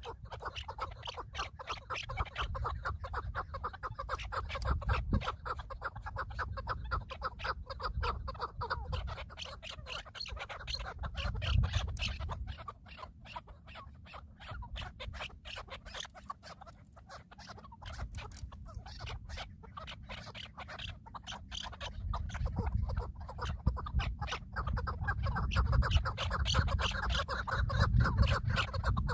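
Birds calling in a dense, rapid, harsh chatter, quieter for a stretch in the middle, over a steady low rumble.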